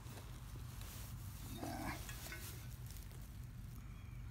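Faint scraping and crumbling of hard clay soil as a metal-detecting digging tool pries a plug out of a hole, over a low steady rumble; a brief faint pitched sound comes in about a second and a half in.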